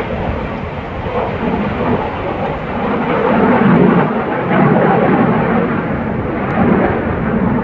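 Jet aircraft passing overhead: a loud, rumbling roar that swells to its loudest about halfway through, mixed with wind buffeting the microphone.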